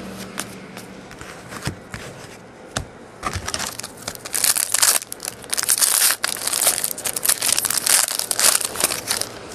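Thin clear plastic crinkling in the hands. A few light clicks come first, then dense, loud crinkling from about three and a half seconds in until just before the end.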